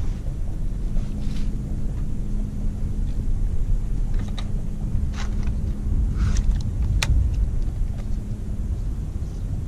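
Wind rumbling across an open microphone on a boat, with a faint steady hum underneath and a few short, light clicks and taps.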